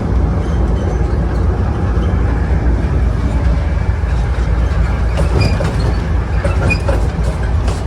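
Class 43 HST power car 43187 running under power on a passenger train: a steady, loud diesel engine and rail rumble, with a few brief high wheel squeals and clicks about five to seven seconds in.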